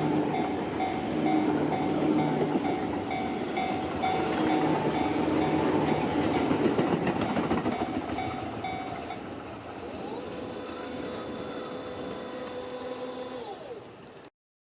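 A Tobu Tojo Line electric commuter train passing over a level crossing, its wheels clattering loudly on the rails while the crossing warning bell rings in a fast, repeating clang. About nine seconds in the bell stops and the train noise dies down. A steady whine holds for a few seconds and drops in pitch just before the sound cuts off abruptly.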